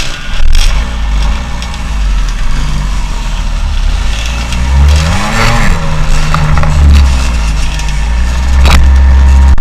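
Motorcycle engine running at low speed, rising briefly in a rev and falling back about halfway through, with a heavy low rumble throughout.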